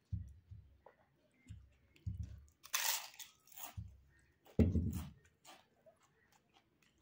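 Close-up eating: a crisp papad bitten and crunched, with a loud crunch about three seconds in and smaller crackles after, between dull chewing sounds from a mouthful of rice and dal.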